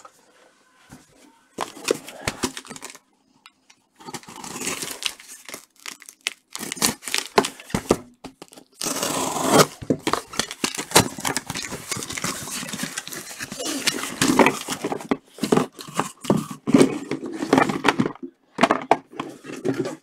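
Packing tape tearing and a cardboard shipping case being ripped open, with cardboard rustling and the sealed boxes inside scraping and knocking as they are taken out and set down.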